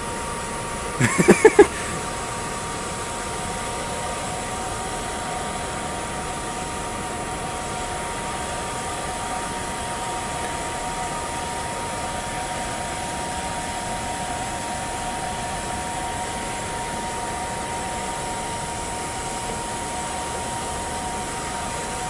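Electric air blower running steadily, forcing air into a charcoal furnace, a constant rushing whine with a few fixed tones. About a second in, a brief cluster of sharp clattering knocks stands out above it.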